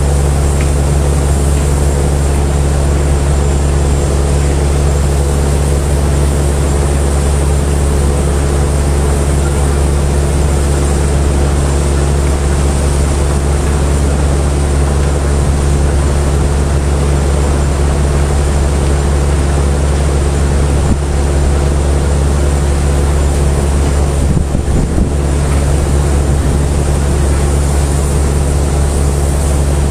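A heavy engine running steadily with a deep, even drone and a constant hiss over it.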